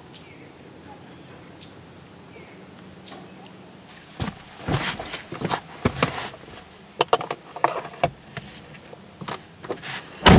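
Insects chirping with a high pulsing trill that cuts off suddenly about four seconds in. Then a person climbs into a car seat, with rustling, knocks and clicks inside the car.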